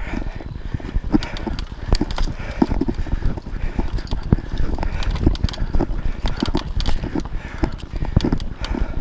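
Mountain bike riding fast over a bumpy dirt trail: tyres rumbling on the ground and the bike rattling and knocking over roots and bumps, with the rider's heavy breathing.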